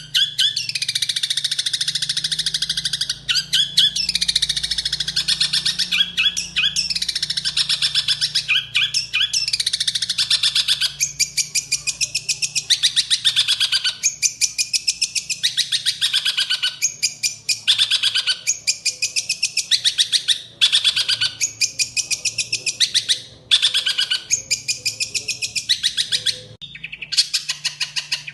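A songbird singing a long, fast, varied high-pitched song in phrases of a second or two with brief pauses, over a steady low hum.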